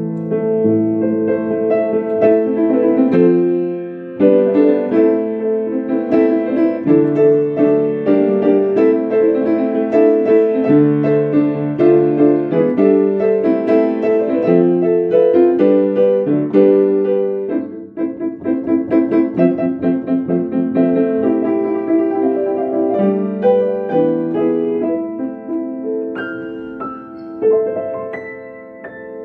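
Ambient piano music played live: slow held chords under a sparse melody. The playing pauses briefly about four seconds in and again near eighteen seconds.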